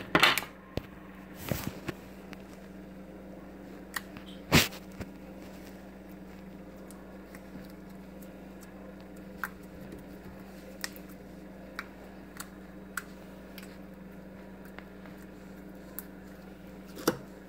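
Yellow borax slime being squeezed and stretched by hand, giving short sticky clicks and pops, a few louder ones in the first five seconds and then small ones about once a second. A steady low hum lies underneath.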